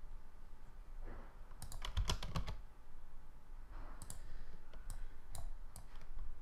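Computer keyboard keystrokes: a quick run of several presses about two seconds in, then scattered single clicks later on.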